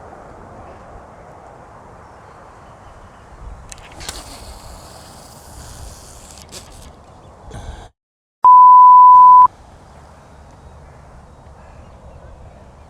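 A loud, steady electronic beep, one pure tone held for about a second, coming in about eight seconds in right after a sudden drop to total silence. Around it, a low steady outdoor background with a brief rustle about four seconds in.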